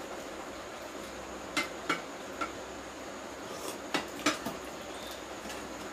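Stainless steel plates and small steel bowls clinking as they are handled during a meal: a few sharp clinks about a second and a half to two and a half seconds in, and two more around four seconds in.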